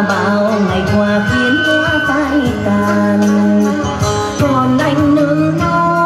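A woman singing a slow Vietnamese love song into a microphone, with a wavering voice over live instrumental accompaniment.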